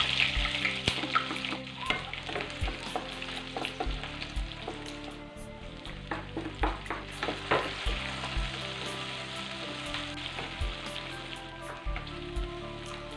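Chopped aromatics and red chilies sizzling in hot oil in a nonstick wok, loudest at the start as they go in, stirred with a wooden spatula that scrapes and taps against the pan.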